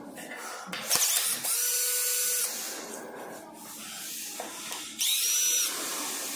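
Cordless electric screwdriver running in two bursts, the first about a second and a half long and the second shorter near the end, turning the screws of an electric scooter's handlebar stem.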